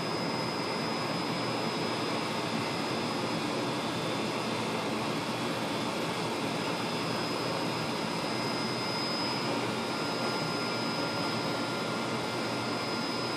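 Steady rushing of air and machine noise from the running fibre-drawing rig and its surrounding lab equipment, with a faint, constant high-pitched whine.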